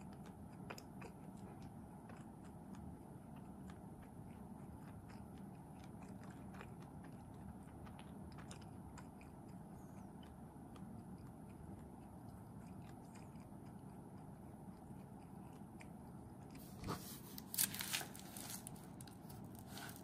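A person chewing and biting soft bread close to the microphone, faint and wet with scattered small mouth clicks. About three-quarters through comes a short cluster of louder sharp crackles.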